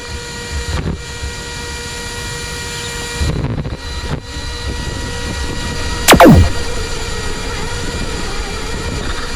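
RC car driving: a steady low rumble with faint constant whine tones over it, and a loud whine sweeping sharply down in pitch about six seconds in.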